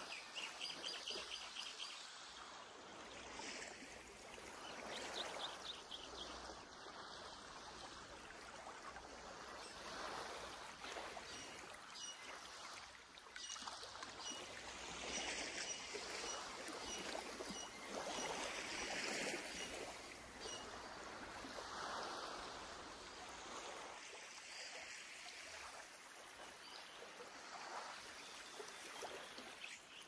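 Sea waves washing onto a beach, a soft hiss that swells and eases every few seconds. Faint bird chirps come through now and then.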